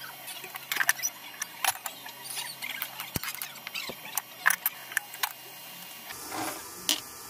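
A spatula clicking and scraping against a wok as meat is stir-fried, in sharp irregular strikes. About six seconds in, fish sauce is poured into the hot pan, bringing a short, denser rush of sound.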